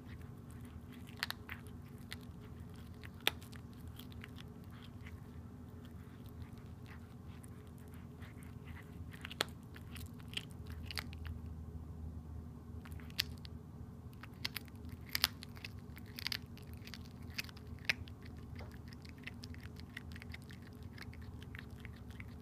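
A cat chewing and crunching on a freshly caught southern flying squirrel: irregular wet clicks and crunches, a few of them louder, over a low steady background hum.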